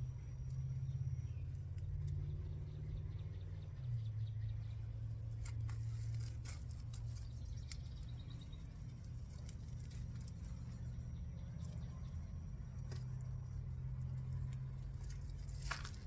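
Potatoes being dug out of garden soil by hand: scattered soft clicks and rustles at irregular times, over a steady low hum.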